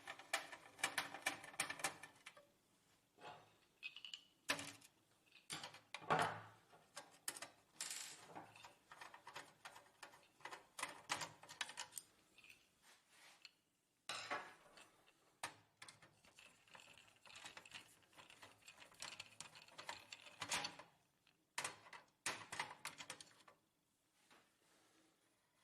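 Faint, irregular clicks and short scraping rattles of a screwdriver backing screws out of a laser printer's scanner unit, with the loose screws and parts being handled, stopping shortly before the end.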